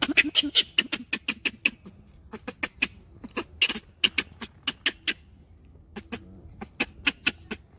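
A monkey making rapid, irregular clicking and smacking sounds, several a second in runs with two short pauses.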